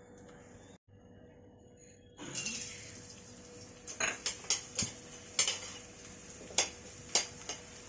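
A metal spoon clinking and scraping against a metal kadhai while stirring edible gum (gond) frying in ghee. A soft sizzle comes up about two seconds in, and repeated irregular clinks follow from about four seconds in.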